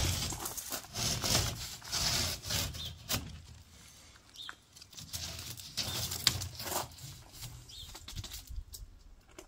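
Irregular scraping and rubbing strokes of a hand tool worked against building material, heaviest in the first few seconds, with a sharp knock about six seconds in.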